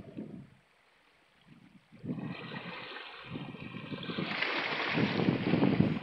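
Small sea waves washing in over shoreline rocks: after a brief lull, the rush of water swells from about two seconds in and is loudest near the end.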